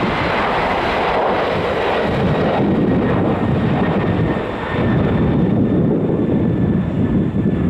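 Boeing 767 jet airliner climbing out after takeoff, its engines at takeoff power: a loud, steady roar. The higher hiss fades after about two and a half seconds, leaving a deep rumble as the jet moves away.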